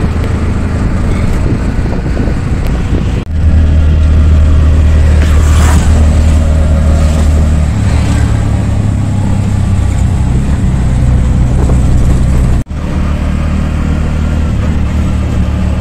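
Auto-rickshaw engine running during a ride, a steady low drone with road and wind noise. The sound is broken by sudden cuts about three seconds in and again about three seconds before the end.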